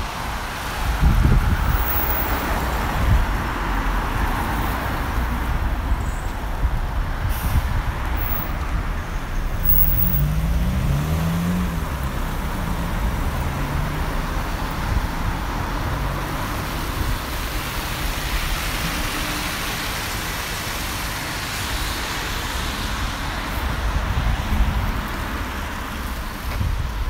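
Double-decker bus passing close by in street traffic. Its engine note rises and falls about ten seconds in, over a steady hiss and rumble of passing cars, with gusts of wind on the microphone near the start and end.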